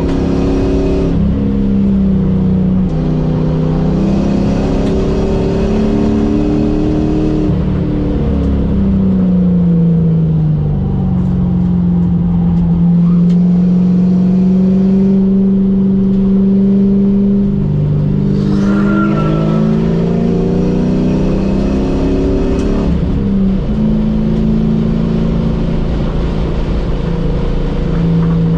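A car's engine heard from inside the cabin while driving on a race track. The engine note holds for stretches and jumps suddenly in pitch several times, as with gear changes, and it glides down once about eight to ten seconds in, all over steady road and wind noise.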